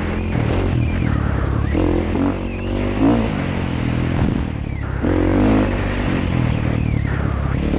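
KTM 350 EXC-F enduro motorcycle's single-cylinder four-stroke engine under way, its pitch rising and falling several times as the throttle is opened and closed, heard close up from the rider's helmet.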